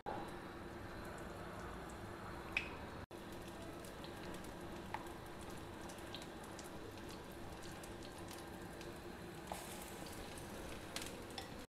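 Faint, steady sizzle of oil heating in a paniyaram pan, with a few soft clicks and taps as batter-coated potato balls are dipped and set into the cups.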